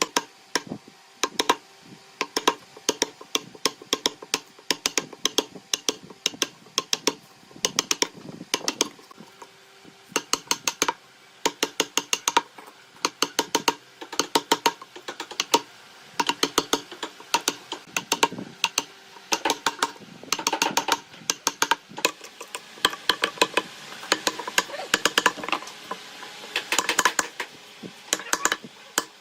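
Rapid runs of sharp taps on wood, several a second in clusters with short pauses between them, as in hand woodworking.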